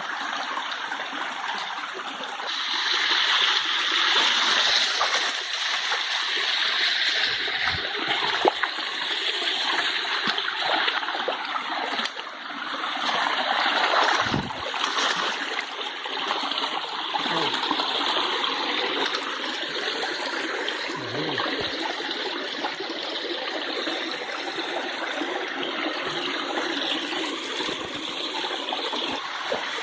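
Running water rushing steadily, like a stream or small waterfall.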